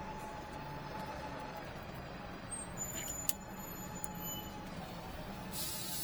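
A few sharp clicks about three seconds in, then a short hiss, like a spray, starting near the end, over a steady low background hum.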